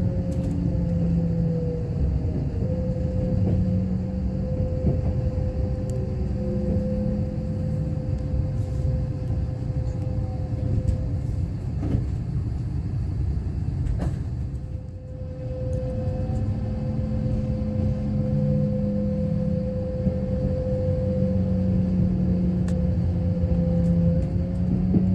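Kintetsu limited express train heard from inside the carriage while running: a steady rumble of wheels on rail under a steady electric motor whine and hum. The whine fades out about halfway through, then comes back rising in pitch as the train picks up speed.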